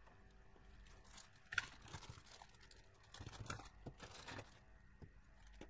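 Faint crinkling of a clear plastic bag and small clicks of hard plastic fountain nozzles being taken out and set down on a table, with a sharp click about one and a half seconds in and a spell of rustling a little after the middle.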